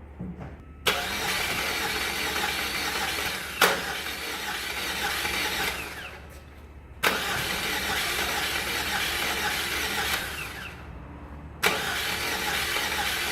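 A 2006 Saab 9-3 Turbo's engine cranking on the starter without catching, in three attempts that each begin with a sharp click. It spins over fast and even, as if it has no compression, which the mechanic takes for a possible timing or compression problem.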